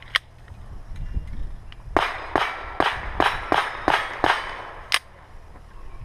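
Ruger Mark III .22 LR rimfire pistol fired in a rapid string of about eight sharp cracks, roughly three a second, after a single crack at the start.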